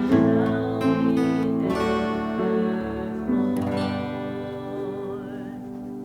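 Acoustic guitar music: chords strummed and picked, with a last chord a little after three seconds left ringing and slowly fading.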